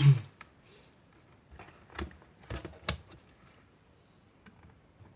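A few short, sharp clicks and taps from handling multimeter test gear (probes, leads and meter), clustered about two to three seconds in, over quiet room noise.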